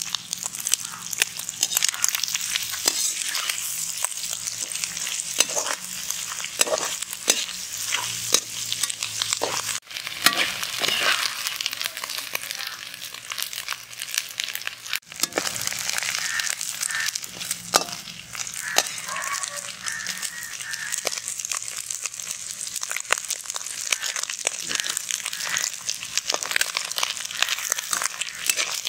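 Diced goat liver sizzling in hot oil in a wok, with a metal spatula scraping and clicking against the pan as it is stirred.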